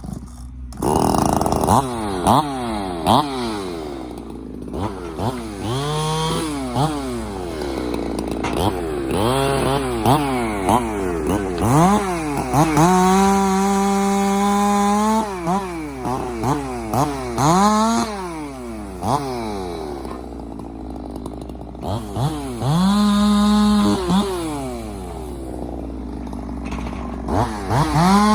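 Husqvarna 372 two-stroke chainsaw with a 75cc big-bore cylinder, revved up and down many times, its pitch climbing and falling, and held at full revs for a couple of seconds at a time, as when cutting into wood.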